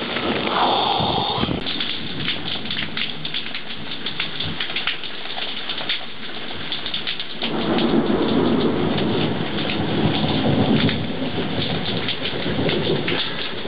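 Heavy thunderstorm rain falling steadily, with a dense patter of drops. About seven seconds in, a long rumble of thunder rolls in and lasts about five seconds before dying away.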